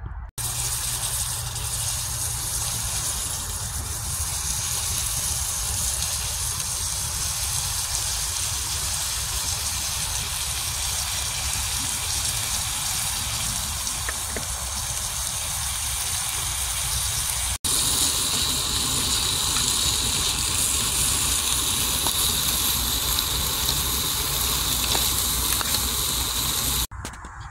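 Potatoes with tomato and onion sizzling in a metal pan over a grill: a steady hiss that breaks off for an instant about two-thirds of the way through.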